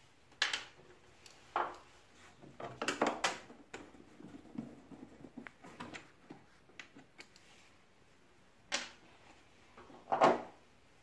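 Screwdriver and hands working on the plastic housing of a split air conditioner's indoor unit, backing out the screws that hold the front panel: scattered clicks, scrapes and knocks, with louder ones about three seconds in and twice near the end.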